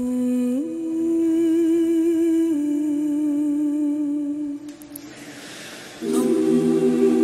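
Background music: a slow melody of long held notes that step up and down, one with a slight waver, thinning to a soft hiss about five seconds in before a fuller chord comes in near the end.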